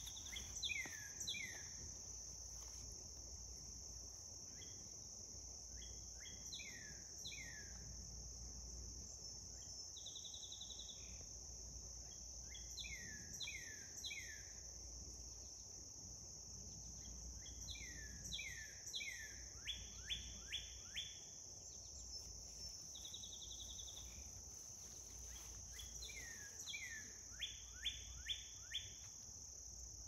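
A steady high-pitched insect chorus, with a songbird singing repeated phrases of clear whistled notes every few seconds: slurred downward notes, quick rising notes, and now and then a short rapid trill.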